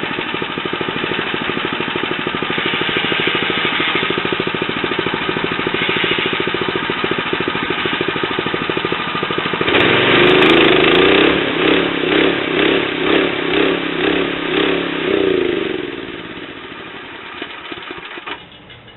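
Gas engine of a Hudson Hunter bandsaw sawmill running as the blade cuts through a log, louder with a pulsing beat from about halfway. Near the end the engine dies away and stops, shut off by a micro-switch blade saver before the blade can hit the log dogs.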